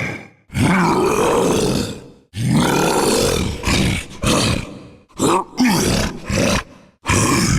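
Homemade Bigfoot sound effect voiced by a person: two long, rough roars that rise and fall in pitch, followed by several shorter roars and one more loud roar near the end.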